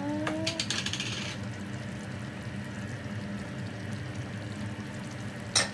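An ingredient tipped from a small cup into a simmering pot of chicken afritada: a short rattle and clicks about a second in, over a steady low hum, then one sharp clack near the end.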